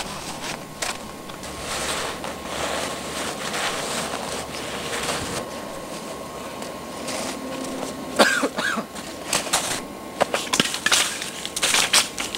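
Rustling and crunching of people moving through snow, with a brief vocal sound about eight seconds in and a run of sharp crunches near the end.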